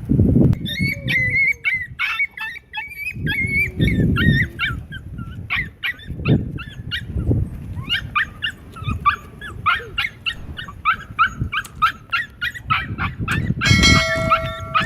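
A husky–Akita mix dog whining and yipping in rapid, high-pitched cries, typical of a dog during mating, with a longer held cry near the end.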